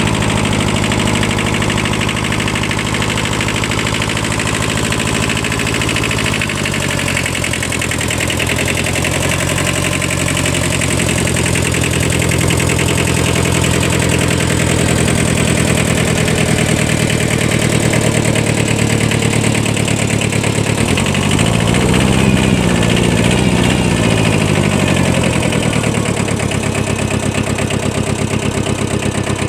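Small Kubota 5001 mini tractor's diesel engine running steadily while the tractor is driven off-road. Its pitch drops about six seconds in and later rises and falls again, the engine speed changing under load.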